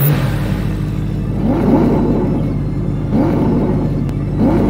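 Intro sound effect of a car engine: a deep, steady rumble with three short rising sweeps about a second and a half apart.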